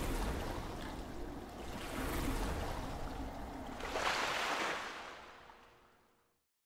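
Rushing, surf-like noise that swells about two seconds in and again about four seconds in, then fades out to silence.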